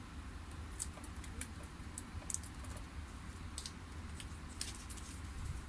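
Scattered light clicks and taps from handling tools and parts at an electronics repair bench, over a low steady hum.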